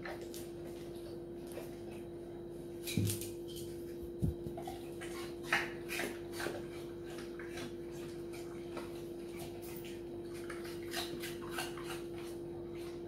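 Quiet room with a steady low hum and a handful of short, light clinks and knocks a second or more apart, the first about three seconds in.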